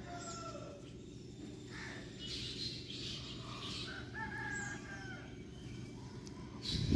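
A rooster crowing briefly a couple of times, with a few higher bird chirps, over a steady low hum. A louder low rumble comes near the end.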